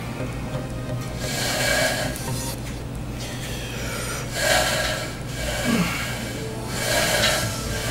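Cable triceps pushdown reps: three rushing swells, one with each rep, about every two and a half seconds, over a steady low hum.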